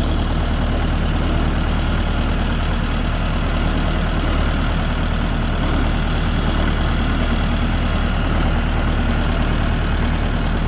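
Engine of a farm utility vehicle running steadily at low revs while it is driven slowly, kept throttled down so it stays quiet.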